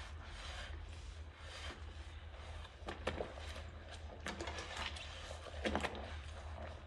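Sponge scrubbing a ceramic bowl in a sink of soapy water: a steady wet rubbing, broken by a few sharp clinks of the bowl, the loudest a little before the end.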